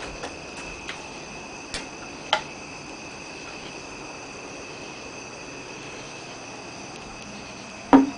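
Microwave oven running with a steady high-pitched whine, broken by a few sharp clicks and a louder knock near the end.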